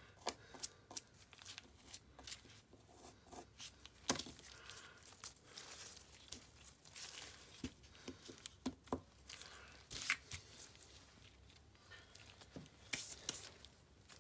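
Toothbrush bristles and dental floss worked over plastic model teeth by gloved hands, brushing and flossing away excess glass ionomer sealant: faint, irregular scraping, clicking and rustling, with a few sharper clicks.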